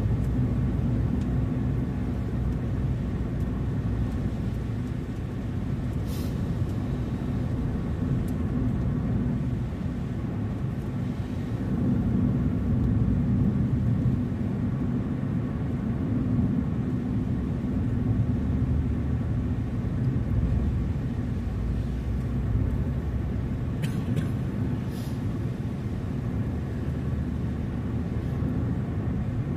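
Car driving along: steady low rumble of engine and road noise, with a few faint clicks now and then.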